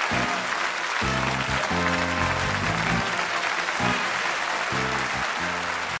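Audience applauding, with music of held low notes playing underneath.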